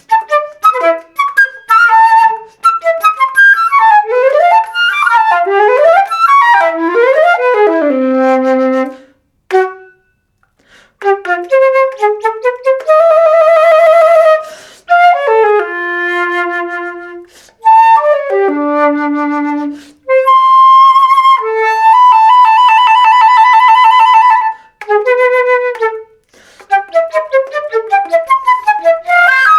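Solo flute playing a contemporary piece: quick runs of short notes and sliding pitch glides, a brief gap about ten seconds in, then long held notes that waver rapidly.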